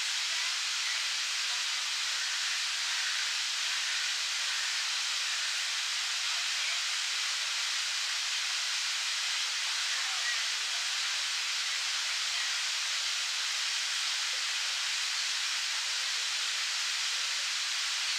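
Park fountain's water jet spraying up and falling back into its pond: a steady, even hiss of splashing water with almost no low rumble.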